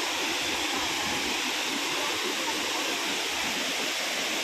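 Shifen Waterfall's falling water: a steady rush of noise.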